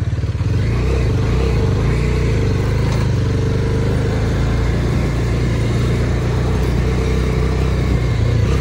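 Bajaj Dominar 250 motorcycle engine running steadily on the move, a low steady hum over road noise, picking up slightly about half a second in.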